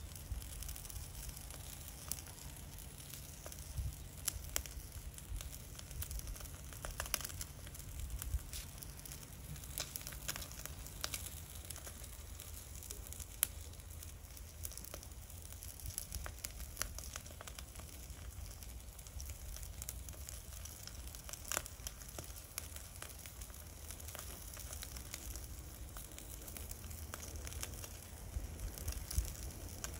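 Miso-marinated redfish fillet sizzling quietly on a wire grill over charcoal in a shichirin, with scattered crackles and pops from the fish and the coals over a low steady rumble.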